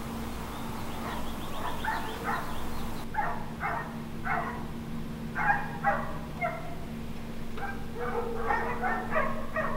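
A dog barking: repeated short barks in quick clusters over a steady low hum.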